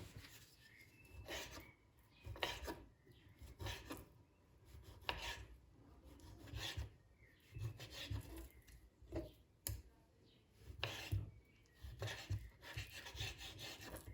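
Food being prepared by hand in a kitchen: a run of about ten short rasping strokes, spaced roughly a second or so apart.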